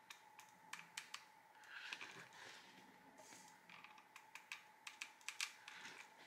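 Hot glue gun dabbing glue onto paper circles: scattered small clicks and taps, with a couple of brief soft paper rustles, over a faint steady high hum.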